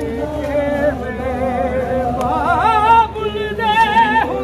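Unaccompanied male singing of a Punjabi noha, a Shia mourning lament, with a wavering, ornamented melody and long held notes.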